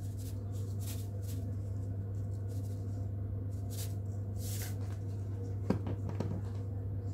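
Salt sprinkled onto diced raw pork belly: a few soft, short hissing patters of falling grains, over a steady low hum, with a small click and faint knocks near the end.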